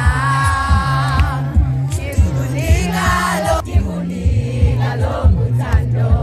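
Group of voices singing in harmony over a steady, pulsing bass beat.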